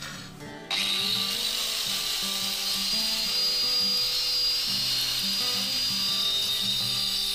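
Doliz BA730 angle grinder fitted with a wood-cutting saw blade, switched on under a second in, its whine rising briefly as it spins up. It then runs steadily with a high whine while cutting into a solid wooden beam.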